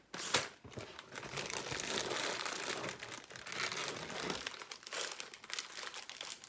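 Plastic LEGO parts bags crinkling as they are handled and lifted out of the box, a dense run of crackles that is loudest in the middle.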